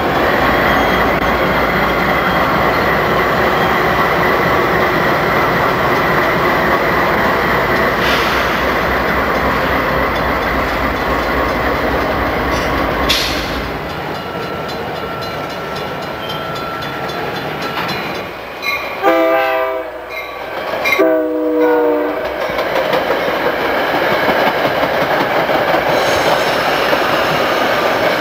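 CSX diesel freight locomotives and cars passing close by with a steady rumble and wheel noise. About two-thirds of the way through, a locomotive air horn sounds two blasts, then passing-train noise carries on.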